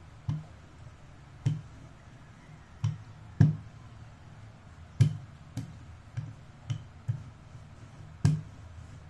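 Wooden rolling pin with handles rolling out dough, giving about ten sharp knocks and clicks at uneven intervals as it is pushed back and forth.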